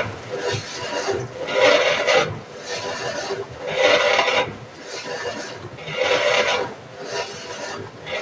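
GE washing machine making a grinding noise that swells and fades in regular surges about every two seconds.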